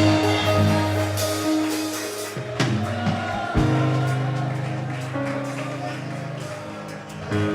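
Live worship music from a band: long held chords over sustained bass notes, with a couple of drum hits, gradually getting softer.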